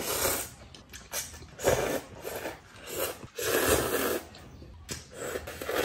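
Thick instant noodles being slurped off chopsticks: a few loud slurps, the longest about three and a half seconds in, with quieter chewing between.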